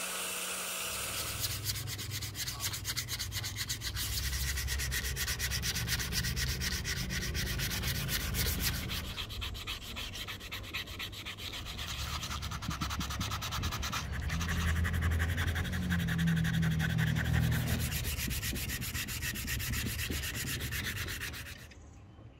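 Sandpaper on a backing pad rubbed by hand over a rosewood axe handle: continuous scratchy sanding of wood. A power sander's motor whir stops about a second in, and the sanding cuts off shortly before the end.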